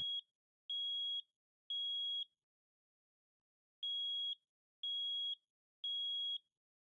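Smoke alarm sounding its temporal-three evacuation signal: high steady beeps of about half a second each, in groups of three separated by a longer pause. It catches the end of one beep and two more, a pause, then a full group of three.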